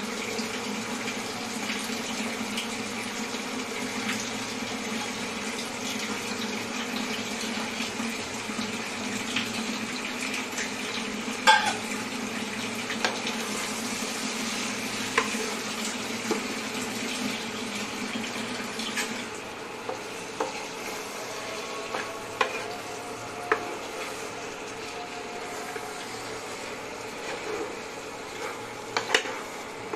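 A spatula stirring potato pieces through an onion-and-spice mixture in a frying pan, with a steady sizzle and scattered knocks and scrapes of the spatula against the pan; the sharpest knock comes near the middle. A steady low background hum drops away about two-thirds of the way through.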